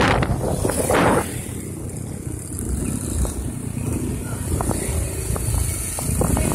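Wind buffeting the microphone of a moving motor scooter, cutting off about a second in to a quieter low rumble with a few faint clicks.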